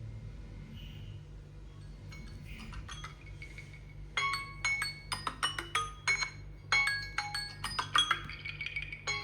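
A smartphone ringtone melody of quick, bright chiming notes in a marimba-like sound, starting about four seconds in; before that only a faint low hum.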